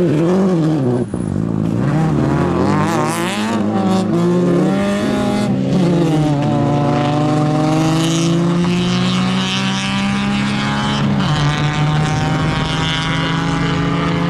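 Seat Ibiza rally car's engine revving hard as it passes and pulls away. The pitch swings rapidly up and down at first, then climbs in long pulls through the gears, dropping at each upshift.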